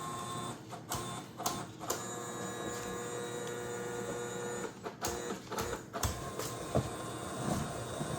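Creality CFS filament feeder's motors whining steadily as the unit keeps rotating back and forth, the tone shifting a couple of times and broken by a few sharp clicks. It cycles without ever stopping, which the owner says is not right.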